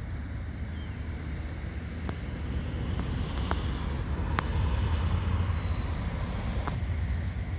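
Single-engine light aircraft's piston engine and propeller running at low power as it taxis at a distance: a low drone that swells a little about halfway through, mixed with wind rumbling on the microphone and a few faint clicks.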